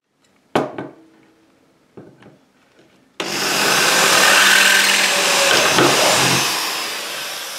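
A knock about half a second in, then a corded electric drill starts abruptly about three seconds in and runs, its bit drilling out the rivet in a steel washer-and-grommet wheel blank clamped in locking pliers. It is the loudest sound and fades a little toward the end.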